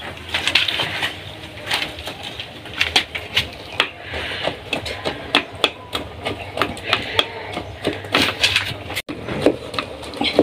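Wooden cooking stick mashing boiled potatoes and vegetables (mukimo) in a metal pot. The stick knocks irregularly against the pot, about two or three knocks a second.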